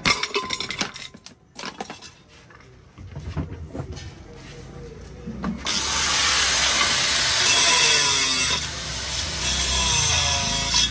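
Metal clinks and knocks of cookware being handled, then about halfway through a handheld angle grinder runs and grinds metal, throwing sparks, as a loud steady grinding noise.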